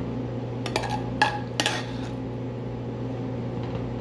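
A metal serving spoon clinks against dishware while sauce is spooned out, with three or four sharp ringing clinks in the first two seconds. A steady low hum runs underneath.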